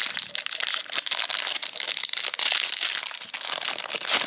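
Foil wrapper of a Panini Prizm basketball card pack crinkling close to the microphone as gloved hands handle and open it: a dense, continuous run of crackles.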